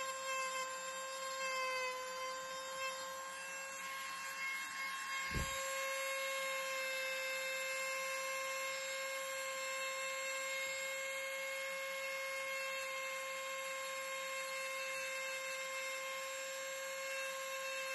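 Corded Ryobi 1.2 amp rotary tool running at high speed with a small carving bit cutting into a wooden hiking stick: a steady high whine that dips slightly now and then as the bit bears into the wood. A brief low bump about five seconds in.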